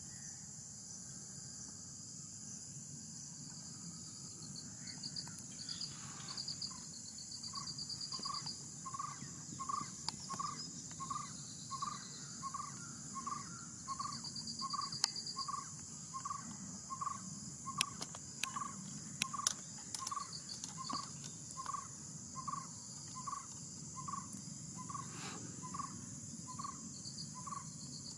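Steady outdoor chorus of crickets and other insects, with a pulsed trill that comes and goes. From about six seconds in, a short call repeats about twice a second to the end, and a few sharp clicks fall in the middle.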